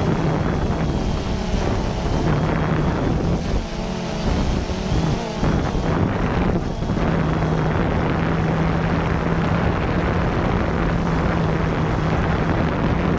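A steady mechanical hum holding one low pitch, with wind buffeting the microphone.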